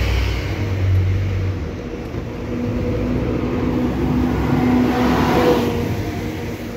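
Motor traffic on a city street: a deep engine rumble at first, then a steadier engine hum that swells and fades away near the end as a vehicle passes close.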